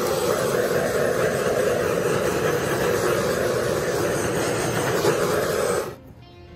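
Handheld torch lit with a click, its flame burning steadily for about six seconds before it is shut off abruptly, as it is passed over the wet acrylic pour paint.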